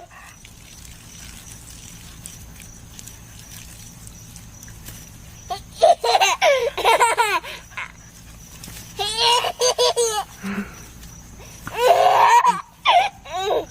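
A baby laughing hysterically in three bouts of high-pitched giggles, the first starting about five and a half seconds in, the last near the end.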